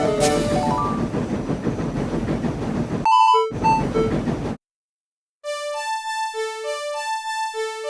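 Soundtrack: a steady rush of steam-locomotive noise with a few short notes over it cuts off suddenly about four and a half seconds in. After a second of silence, a simple electric-piano tune begins.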